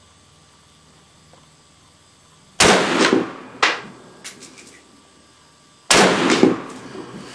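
Two shots from a Russian SKS semi-automatic rifle in 7.62×39mm, about three seconds apart, each a sharp crack that rings out and dies away. A smaller sharp report follows about a second after the first.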